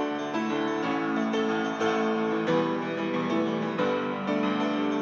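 Instrumental passage of a song: keyboard chords played in a steady rhythm between sung lines.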